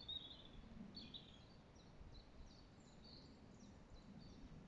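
Faint birdsong: short, high chirping notes repeated again and again over a near-silent outdoor background.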